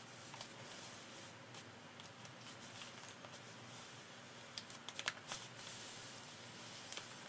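Hands pressing and smoothing a glued paper panel onto a journal page: soft paper rubbing and rustling, with a cluster of light paper taps and crinkles around five seconds in.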